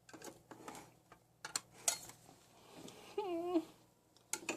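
Kitchen dishes and utensils clinking and knocking: several sharp, separate clinks. About three seconds in there is a short, wavering vocal sound.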